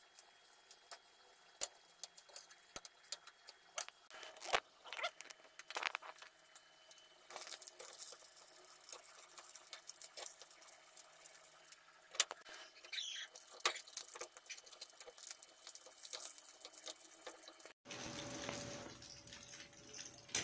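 Hot oil sizzling and crackling as whole one-day-old chicks deep-fry in a wok, with scattered sharp pops. The sound drops out for a moment near the end and comes back fuller.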